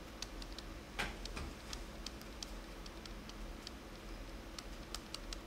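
Faint, irregular light taps and clicks of a pen stylus on a touchscreen as words are handwritten, one slightly louder tap about a second in.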